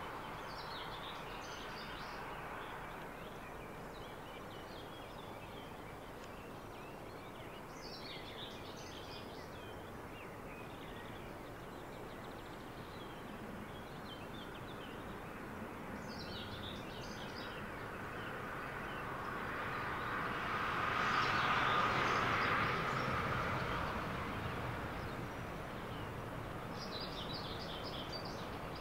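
Faint, steady rumble of a distant freight train approaching on electrified track, with a songbird repeating a short, high phrase every several seconds. A broader swell of noise builds about two-thirds of the way through and fades again.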